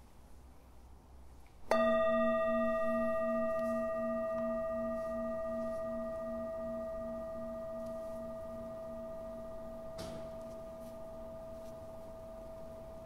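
A singing bowl struck once, ringing on in a long slow fade, its lowest tone wavering in a slow regular beat over a steady clear tone above it.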